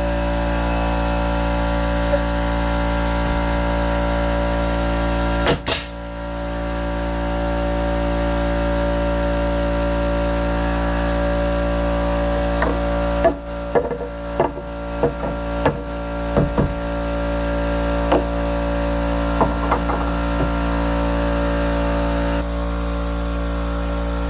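Air compressor running with a loud, steady hum. A sharp crack comes about five seconds in, and a run of clicks and knocks follows between about 13 and 20 seconds.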